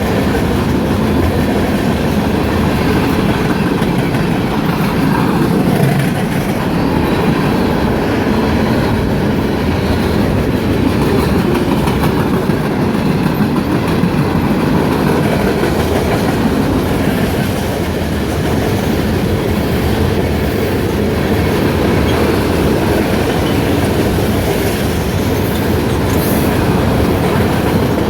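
CSX freight train's cars rolling steadily past, steel wheels clattering over the rails in a continuous rumble.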